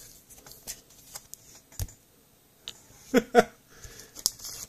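Trading cards and clear plastic card sleeves being handled: soft rustles and light clicks, with a louder tap about two seconds in.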